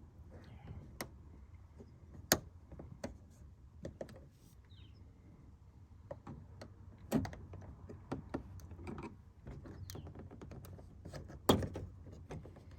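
Irregular plastic clicks, taps and knocks from handling a car's interior door trim and broken plastic door-handle surround, with two sharper knocks, one a couple of seconds in and one near the end.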